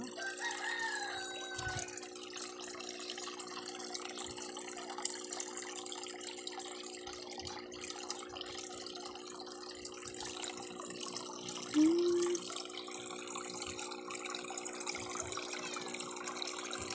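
Two streams of water pouring from pipe outlets into a fish pond, a steady splashing over an even hum. About twelve seconds in comes a short, loud pitched call.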